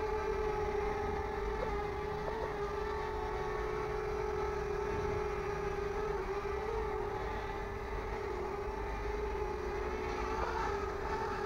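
Small red Fairy Air 33 toy quadcopter flying low, its four small motors and propellers giving a steady buzzing whine that wavers slightly in pitch as it manoeuvres.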